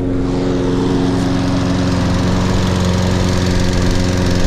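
Toro Recycler lawn mower's 190cc Briggs & Stratton engine running at a steady speed, warming up after a cold start.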